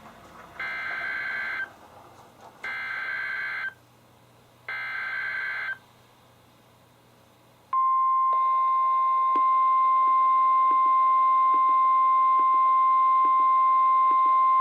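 Emergency Alert System SAME header on NOAA Weather Radio: three one-second bursts of warbling two-pitch digital data tones, about a second apart. After a short pause, the steady 1050 Hz weather radio warning alert tone starts near the middle and holds.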